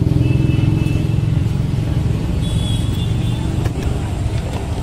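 Motor vehicle engine running close by: a steady low rumble that eases slightly toward the end, with faint thin high tones above it.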